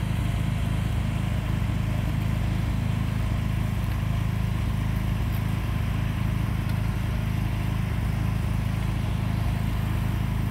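An engine running steadily, a continuous low hum at an even level.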